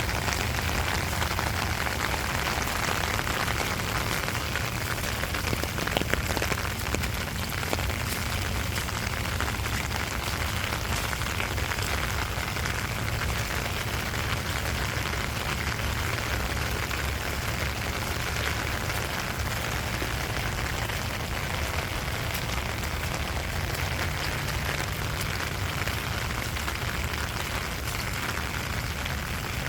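Steady rain falling, an even patter of drops on surfaces with a constant low rumble underneath and a few slightly louder drops about six to eight seconds in.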